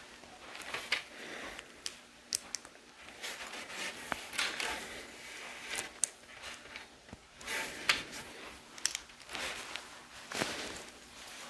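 Small plastic LEGO pieces being handled and pressed together: scattered sharp clicks amid light rustling.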